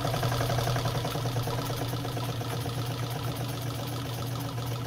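Nelco electric sewing machine running at a steady speed, sewing a straight stitch through a double layer of denim: a motor hum under a rapid, even stitching rhythm.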